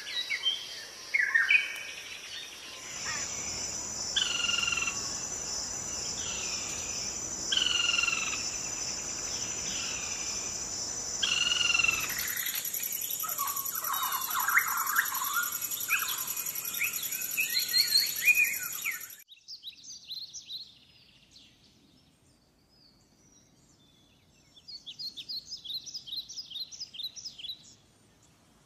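Birds calling: repeated short falling calls about once a second, then denser chirping over a steady high whine. The sound drops off about two-thirds through, and a short rapid trill comes near the end.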